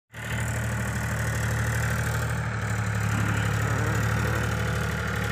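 The diesel engine of a JCB 3DX backhoe loader running steadily while it works the backhoe, a continuous low hum.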